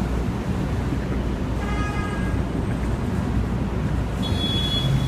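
Steady low rumble of car traffic on an airport terminal roadway. About two seconds in comes a short pitched tone lasting under a second, and near the end a thin high squeal.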